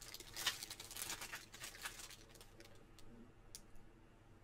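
Plastic bag and card packaging being handled: faint crinkling and small clicks, busiest in the first couple of seconds, then only a few scattered clicks.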